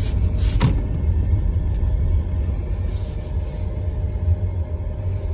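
Mercedes EQS electric car rolling: a steady low rumble with a faint hum, and a hiss that dies away in the first second.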